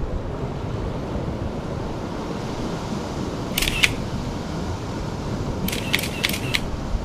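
Camera shutter clicks: two about three and a half seconds in, then four in quick succession near the end. They sound over a steady rush of wind and surf.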